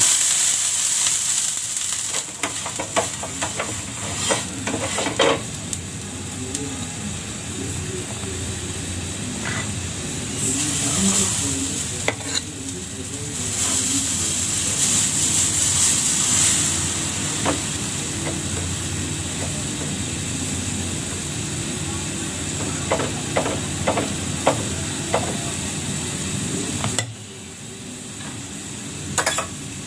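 Water and dosa batter sizzling on a hot tawa: a steady frying hiss that swells a few times, with light clicks and scrapes of the ladle as the batter is poured and spread. The sizzle drops away shortly before the end.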